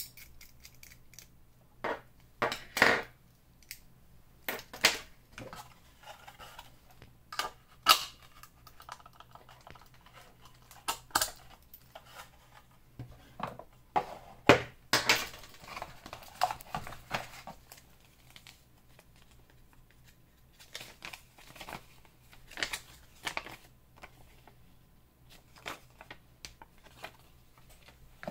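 Handling noise of small metal guitar-jack-plug keychains and their key rings: irregular clicks and clinks as they are screwed together and set down on a wooden tabletop, with a stretch of rustling about midway.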